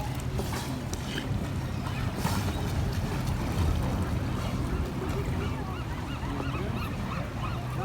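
A chorus of California sea lions barking, with many short honking calls overlapping continuously over a steady low hum.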